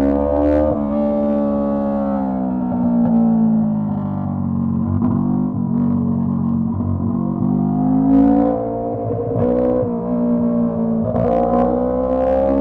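Honda CB125T's small parallel-twin engine running with its silencer removed, loud and open. The pitch climbs and falls as the bike accelerates and eases off, with sudden drops where gears change, about a second in and again past the middle. The rider finds it runs better this way.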